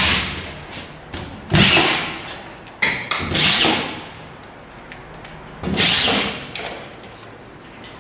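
Bosch GSR 10.8 V-EC TE cordless drywall screwdriver driving screws into plasterboard in four short bursts, each under a second long, the last about six seconds in.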